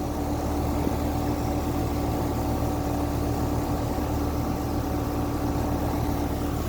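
2019 Carrier Comfort central air conditioner's outdoor condenser unit running, with its Copeland scroll compressor and condenser fan. It makes a steady low hum with one constant tone over it.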